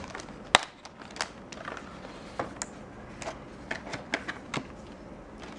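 Plastic packaging of a RAM memory kit being handled and pried open: irregular clicks and crackles, the sharpest about half a second in.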